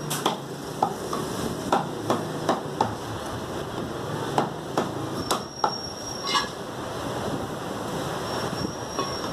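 Meat cleaver chopping mutton on a wooden butcher's block: sharp, irregular chops, a dozen or so, thinning out toward the end.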